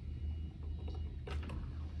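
Ninja Programmable XL drip coffee maker brewing: a low steady hum with two short perking pops about a second and a half in, as the heater pushes water up to the brew basket.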